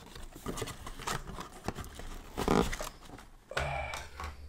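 Knife cutting and pulling at the plastic packaging that holds a toy inside a cardboard box, with irregular rustling, scraping and clicking of the cardboard and plastic.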